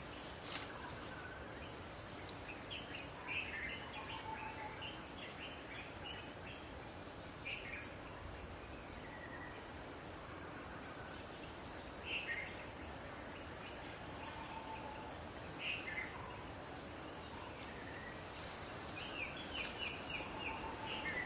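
Steady, high-pitched buzzing of insects, with short bird chirps and calls every few seconds and a quick run of bird notes near the end.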